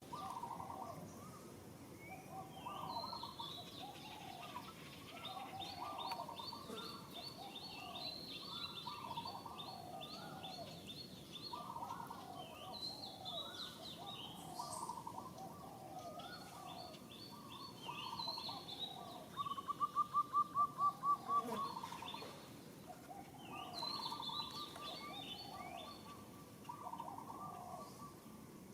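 Birds calling outdoors in overlapping, repeated notes, with a higher chirping trill over them. About twenty seconds in, a louder call of quick pulses, about five a second, lasts some two seconds.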